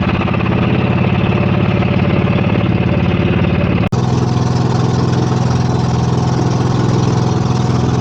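Bangka boat engine running steadily at a constant speed, with a brief break about four seconds in before it carries on.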